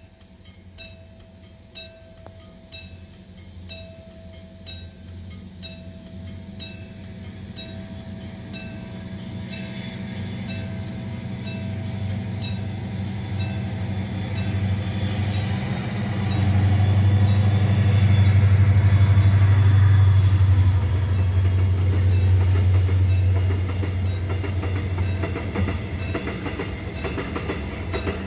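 A level-crossing warning bell rings in an even repeating beat while a diesel-hauled freight train approaches, its engine drone growing steadily louder. The locomotive passes loudest about two thirds of the way through, followed by oil tank wagons rolling by with their wheels clacking over the rail joints.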